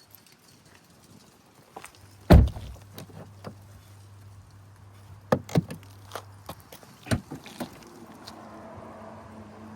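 Audi A5 Sportback car door shutting with a single heavy thump, followed by several sharp clicks over a steady low hum, with faint tones coming in near the end.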